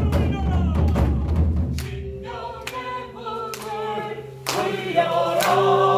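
Several voices singing or chanting together over a low booming drum. The drum drops out for a couple of seconds mid-way, leaving the voices, and comes back in near the end.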